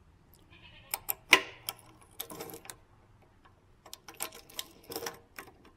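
Irregular sharp metallic clicks and ticks from the drill press's return-spring cover being turned and reseated by hand against the head casting to set the spring tension. The loudest click comes about a second and a half in, with another run of clicks in the second half.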